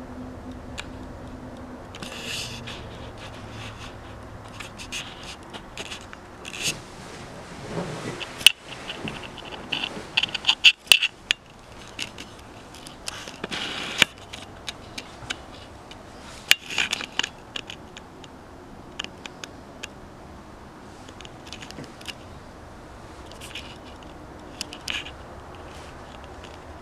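Handling noise: scraping, rustling and scattered sharp clicks, with a dense cluster of louder clicks about eight to eleven seconds in and more around fourteen and sixteen seconds.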